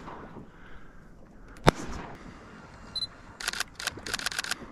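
A single shotgun shot about a second and a half in, the loudest sound. Near the end comes a quick run of sharp clicks.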